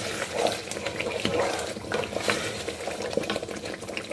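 Spatula stirring a thick tomato-and-pepper stew in a pot, with small clicks and scrapes against the pot as the stew sizzles and bubbles in its oil.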